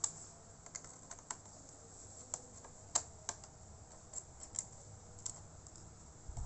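Scattered light clicks and taps of hands working on a laptop's plastic case, irregular and a second or so apart, the sharpest about three seconds in.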